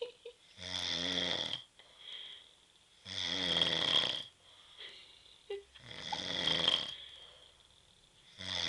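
A man snoring in his sleep, one long snore about every two and a half to three seconds, each lasting about a second: four snores, the last starting near the end.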